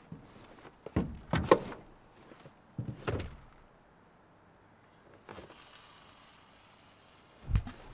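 Knocks and thumps on an aluminum boat as a fishing rod is taken from its holder, then a cast: the reel's line hisses off the spool for about a second and a half, followed by a loud low thump near the end.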